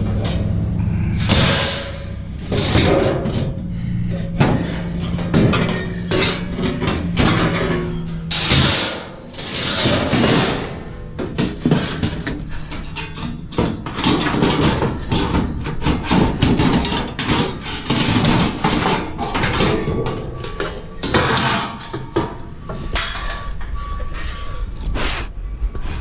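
Hand tools working on a scrap appliance's sheet-metal body: a run of irregular metallic knocks, clanks and scrapes as parts are pried and cut off.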